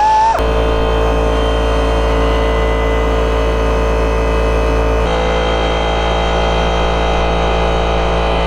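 A motor runs steadily with a loud, even hum, shifting slightly about five seconds in; a higher whine cuts off just after the start.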